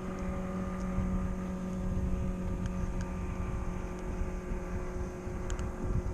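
A steady motor drone holding one pitch, with low wind rumble on the microphone and a few faint ticks.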